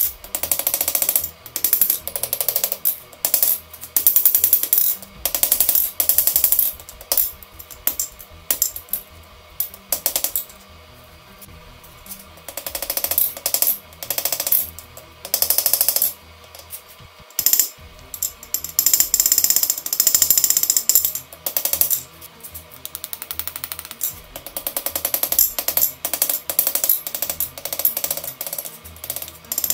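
Hand hammer striking hot steel on an anvil in quick runs of blows with short pauses between, the anvil ringing bright and high. The forging is sped up, so the blows come faster than a smith swings.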